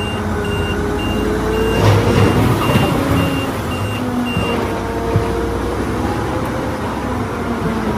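Bulldozer engine running steadily under load, with its reversing alarm beeping about twice a second until about halfway through.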